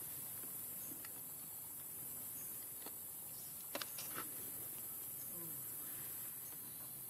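Steady high-pitched insect chorus, with a few faint clicks a little under four seconds in.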